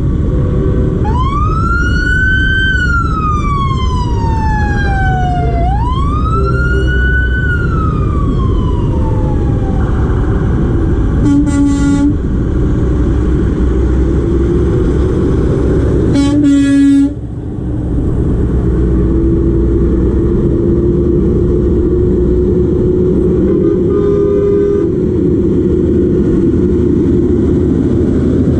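A siren wailing up and down through two slow cycles, then two short air-horn blasts, over the steady low rumble of diesel truck engines.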